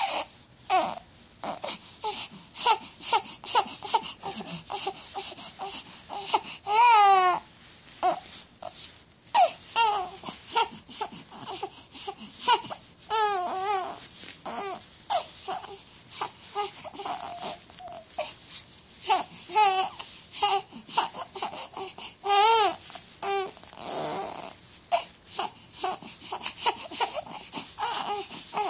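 A baby vocalizing in many short bursts, babbling and fussing, with several longer high-pitched wavering cries spread through it.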